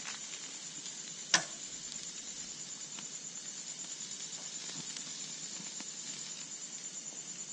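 Night insects trilling steadily in a high, fast-pulsed chorus over the faint sizzle and crackle of a charcoal barbecue, with one sharp click about a second and a half in.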